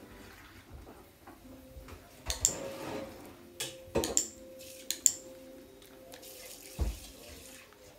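A puppy licking and chewing treats from a hand, soft wet smacking broken by a handful of sharp clicks.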